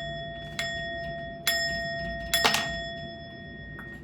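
Small metal bell struck three times about a second apart, each strike ringing on with a clear tone. The third strike is louder and rattlier. The ringing is cut off short near the end.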